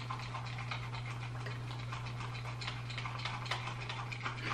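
Light, irregular clicks from a plastic continuous-mist spray bottle being handled and its trigger worked, over a steady low hum.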